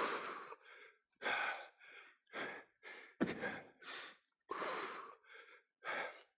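A man breathing hard in short, noisy puffs, a little more than one a second, winded from a strenuous bodyweight exercise.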